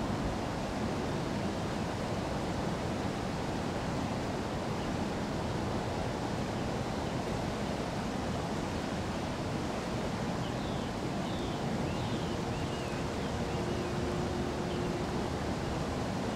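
Steady rush of flowing river water. A few short high chirps come in a little past the middle.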